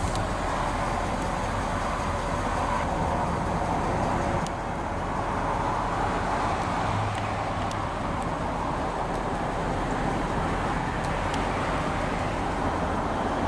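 Ford 6.7-litre Power Stroke turbo-diesel V8 of a 2018 F-250 Super Duty idling steadily after start-up, heard from inside the cab.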